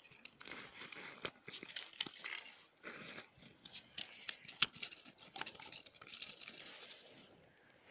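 Crushed ice chips and snow crunching and crackling irregularly, with a few sharp clicks; it quietens near the end.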